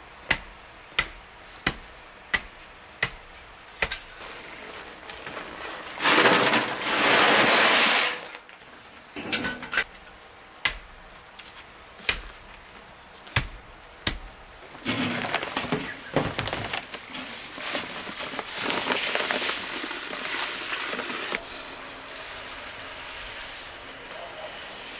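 Wooden hand tamper thudding down on loose soil around a post to compact it, about one and a half blows a second at first, then a few scattered blows. Between these there is a loud two-second rush of noise. Near the end comes a long steady spray of water from a hose nozzle into a steel wheelbarrow.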